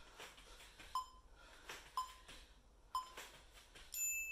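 Workout interval timer counting down: three short beeps a second apart, then a longer, higher beep that marks the start of the next timed exercise.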